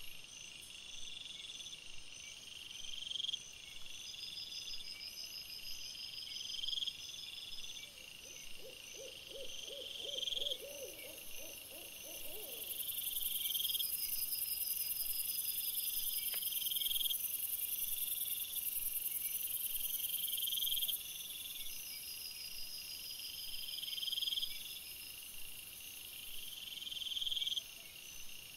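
Chorus of night-calling animals: a high call that rises over about a second and repeats about every one and a half seconds, with faster pulsed calls above it. About eight seconds in, a lower, rapidly pulsed call sounds for some four seconds, and a steady hiss comes in near the middle.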